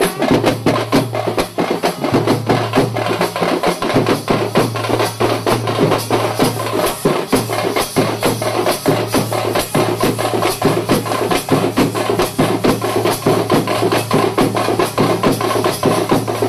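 Loud, fast percussion music: dense rapid drum strokes over a deep, repeating bass line.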